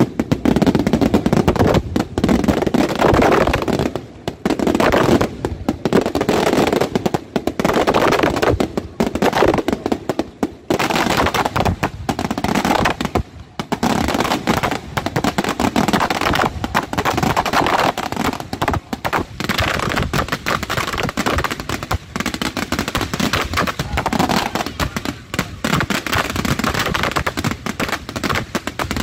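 Fireworks display firing a rapid, continuous barrage: shells and low-level fireworks bursting one after another with dense crackling, with only a few brief lulls.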